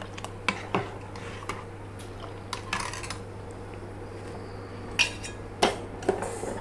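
A metal spoon whisking a gram-flour and buttermilk batter in a steel bowl, clinking against the bowl's sides at irregular moments, with the sharpest clink about five seconds in.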